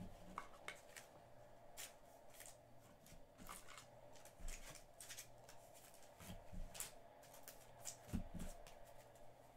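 Faint handling of trading cards: soft rustles and scattered light clicks as cards are sorted and shuffled, over a low room hum.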